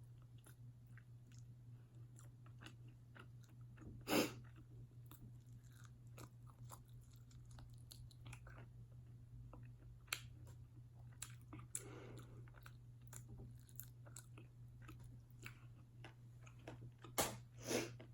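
Close-miked chewing and biting of a barbecue-sauced KFC chicken wing, with small wet mouth clicks and a few sharper bites, one about four seconds in and two near the end. A steady low hum runs underneath.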